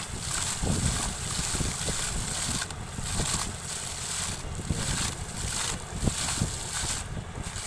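Water and compressed air gushing and splashing out of a borewell pipe in irregular surges: air-lift flushing, with the compressor's air driving muddy water and silt up and out of the well. Wind rumbles on the microphone.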